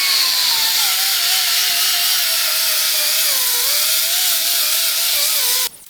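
Handheld electric grinder grinding metal of a wheel spacer, with a loud rushing hiss. Its motor whine sags and wavers in pitch as it is pressed into the work. It cuts off suddenly near the end.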